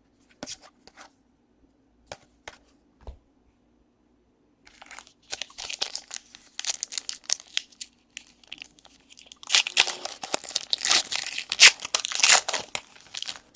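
Foil trading-card pack wrappers being torn open and crinkled. A few light clicks come first, then crinkling starts about five seconds in and is loudest over the last four seconds.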